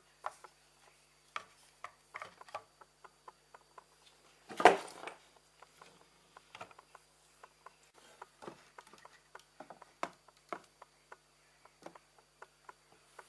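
Light scattered clicks and taps of objects being handled, with one louder knock and scrape about four and a half seconds in. No motor is running.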